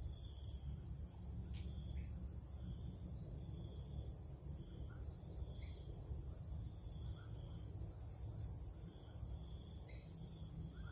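A steady high-pitched insect chorus drones without a break over a low steady rumble, with a few faint short chirps and a single light click.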